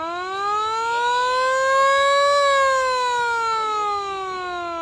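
Siren on a Japanese Toyota fire truck sounding one wail: the pitch climbs for about two seconds, peaks around the middle, then slowly winds down.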